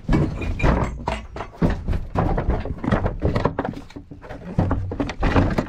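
Rapid, irregular thuds and knocks with rustling handling noise from a handheld camera carried quickly through a room.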